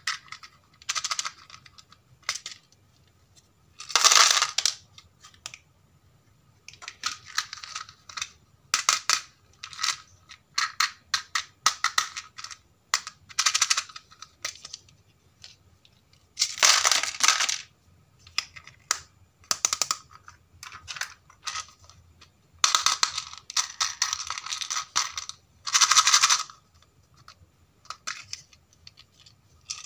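Small plastic toys being handled over a plastic tray: irregular clicking and clattering of plastic on plastic, with a few louder rattling bursts, such as near the middle and about three quarters of the way through.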